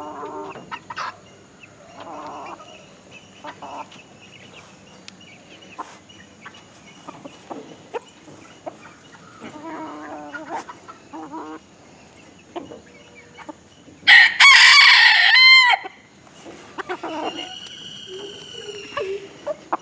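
Chickens clucking in short scattered calls, with a rooster crowing loudly about two-thirds of the way through and a second, fainter crow right after it.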